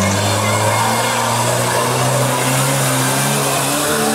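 Mitsubishi Pajero's engine running hard under load, at a fairly steady pitch, as it drives up a steep muddy slope.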